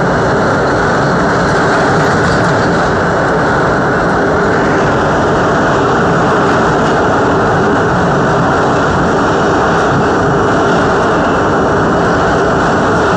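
R42 subway car running through a tunnel: a steady, loud rumble, heard from inside the car.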